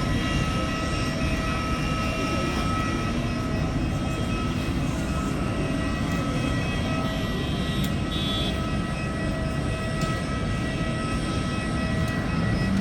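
Steady low rumble and hum of aircraft machinery around a parked airliner, with several steady whining tones over it.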